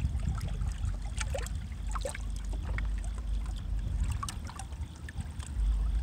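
Small river waves lapping and splashing against riprap boulders, with many little trickles and splashes, over a low rumble that gets louder shortly before the end.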